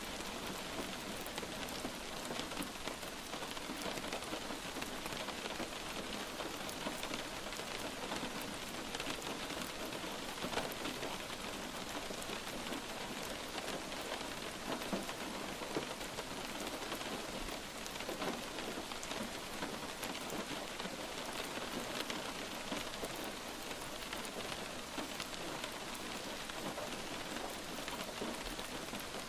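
Light rain falling steadily: an even hiss of rain with scattered sharp ticks of single drops.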